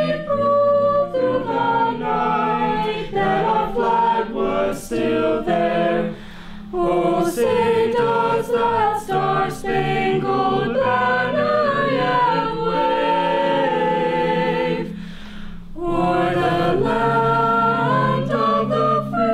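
A group of voices singing in harmony, choir-like, holding some long notes, with two short pauses about six and fifteen seconds in.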